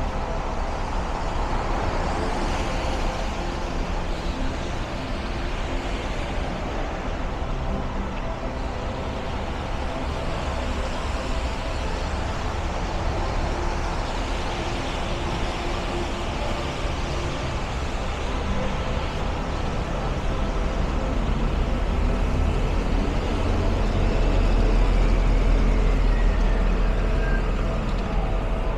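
Steady city street traffic on a rainy evening: passing cars and buses with tyre noise and engine hum. A low engine rumble grows louder over the last several seconds.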